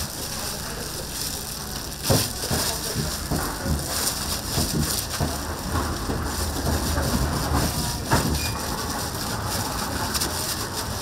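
Tteokgalbi (minced short-rib patties) sizzling steadily on a hot grill, with a couple of sharp knocks.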